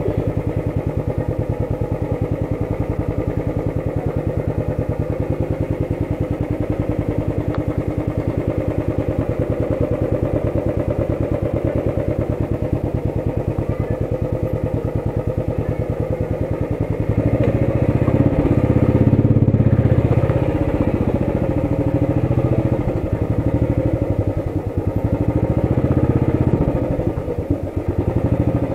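Motorcycle engine running steadily with a fast, even beat, growing louder and rumblier about two-thirds of the way through.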